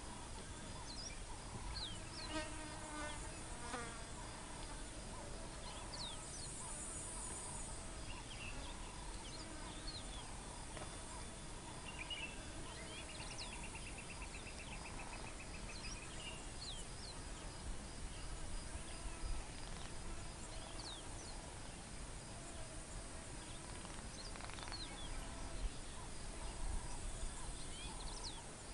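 Flies and other insects buzzing steadily, with scattered short bird chirps and one rapid rattling trill around the middle.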